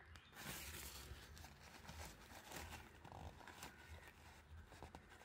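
Faint rustling of a paper towel wiping ink off a fountain pen after filling, with a few light clicks.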